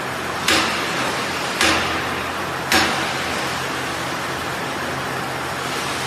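Combined silage baler and wrapper running with a steady mechanical drone and low hum, with three sharp knocks about a second apart during the first three seconds before it settles to the drone alone.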